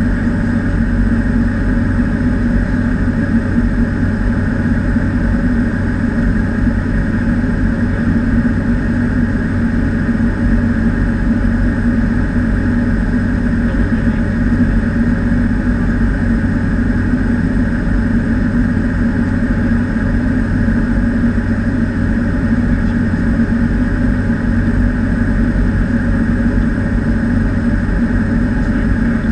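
Cessna 208B Grand Caravan's single turboprop engine and propeller in flight, heard inside the cockpit as a loud, steady drone that does not change.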